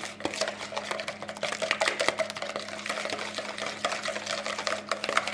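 Wire whisk beating eggs in a plastic bowl: rapid, uneven clicking and scraping of the wires against the bowl.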